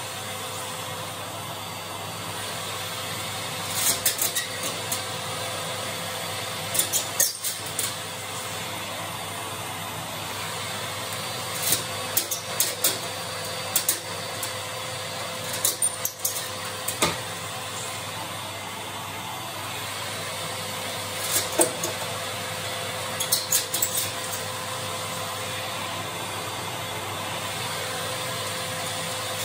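Steady drone of a vacuum cleaner running, broken every few seconds by short bursts of metallic scraping and clinking as a spiral wire flue brush is worked through the passages of an oil-fired boiler's heat exchanger.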